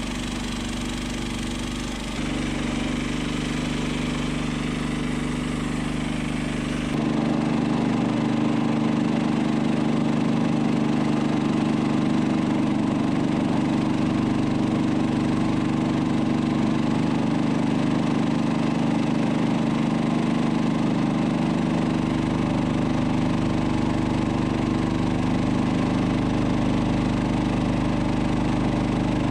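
Massey Ferguson 255 tractor engine running steadily. It gets louder about two seconds in and again about seven seconds in, then holds.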